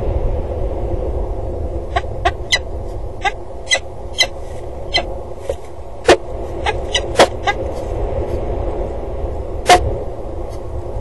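Peregrine falcons calling: a loose series of short, sharp call notes at irregular intervals, starting about two seconds in, over a steady low rumble.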